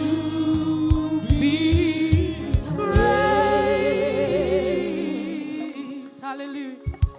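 Gospel choir singing worship music over a band, with drum strikes and bass under the voices and long held notes with vibrato. The music dies away near the end.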